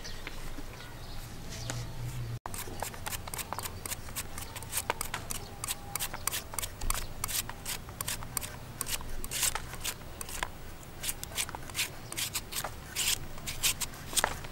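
Serrated steel slicer shaving the firm white flesh of a palm fruit: a quick, uneven run of crisp scraping cuts, several a second, starting after a brief gap about two seconds in.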